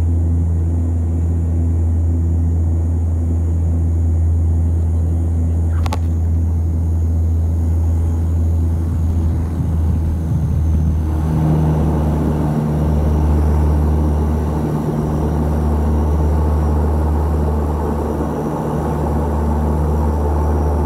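Cabin sound of an Antonov An-24RV's Ivchenko AI-24 turboprop engines and propellers while the aircraft rolls along the runway: a loud, steady low propeller drone. A single click comes about six seconds in, and a broader rushing noise joins the drone about halfway through.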